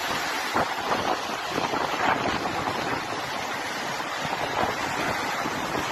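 Rushing muddy floodwater and storm surf, a steady roar of water with strong wind gusting on the microphone.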